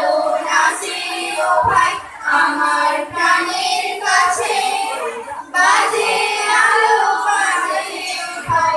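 Several girls singing a song together into microphones, the voices amplified, with a short break about five and a half seconds in.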